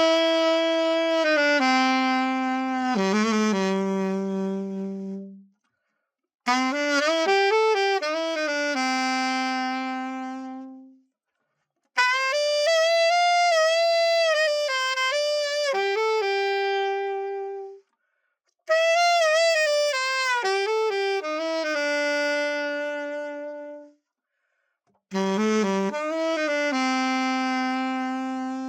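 Alto saxophone played solo with no accompaniment, in five short melodic phrases that each end on a held, fading note, with silent gaps between them; it plays like a test of the horn after a full overhaul.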